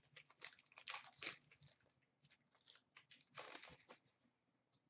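Faint handling noise of trading cards: light clicks and short rustles as cards are shuffled and set down, with a slightly longer rustle about three and a half seconds in.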